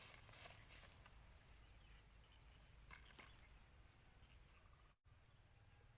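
Faint, steady high-pitched insect drone over near-silent riverside quiet, with a few soft rustles near the start and again about three seconds in. Everything cuts out for an instant about five seconds in.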